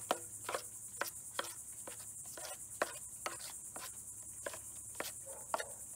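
Steel 4-inch drywall knife clicking and scraping against a metal mud pan as thick quick-setting joint compound is mixed and scraped off the pan's edges, a sharp click about two or three times a second at uneven spacing. A steady high-pitched insect drone runs underneath.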